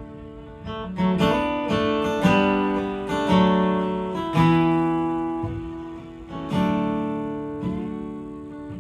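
Acoustic guitar strumming chords in a slow rhythm, each chord left to ring and fade before the next, in an instrumental break of a live country-rock song.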